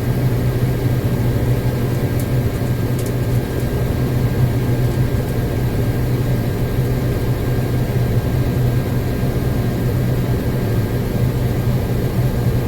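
Combine harvester running steadily: a loud, even low drone with a faint steady high whine over it.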